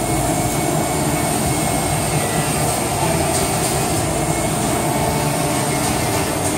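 Amada Vipros 255 turret punch press running: a steady mechanical drone with a faint high whine over it.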